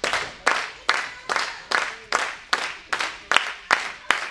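Audience clapping in unison, a steady beat of about two and a half claps a second.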